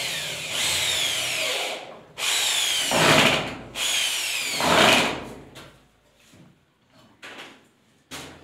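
Power drill run three times against gypsum board, its pitch dropping during each run, followed by a few short knocks near the end.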